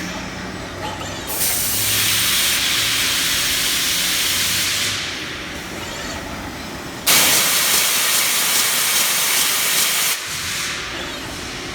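CNC machine running with a low steady hum, broken by two loud bursts of hissing of about three seconds each; the second starts and cuts off abruptly.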